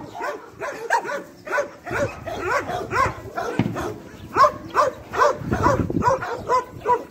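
Several dogs barking and yipping at once, a dense run of short overlapping calls with no let-up.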